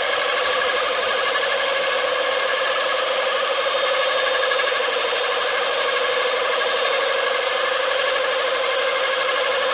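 Pulvex diamond core drill running steadily with a continuous, slightly wavering whine while drilling through vitrified porcelain paving.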